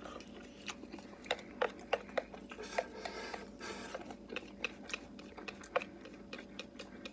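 Wooden chopsticks tapping and scraping against a bowl as food is shovelled from the tipped-up bowl into the mouth: a string of quick, irregular clicks with a short stretch of scraping in the middle.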